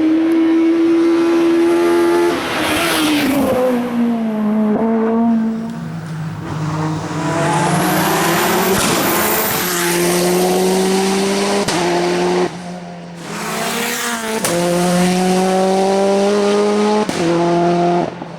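Hillclimb race car engine running at high revs, its pitch holding and then stepping several times as it changes gear, with a brief lift off the throttle a little after halfway.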